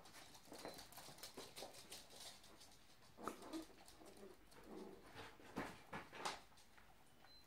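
Chihuahuas' claws tapping and pattering faintly on a laminate floor as they scamper about, with a few sharper knocks.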